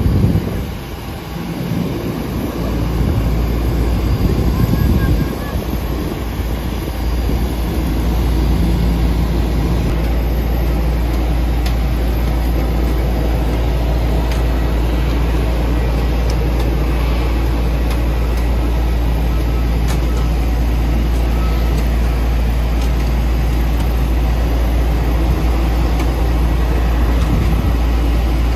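Steady loud rumble and hum of airport apron noise beside a parked airliner whose engines are not turning. It wavers for the first few seconds, then holds steady.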